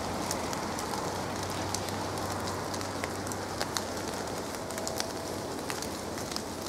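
Steady rain falling under trees: an even soft hiss with many scattered sharp drips.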